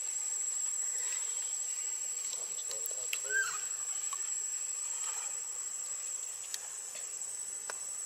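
Steady high-pitched drone of insects, unbroken throughout, with a few faint ticks and one brief short squeak about three seconds in.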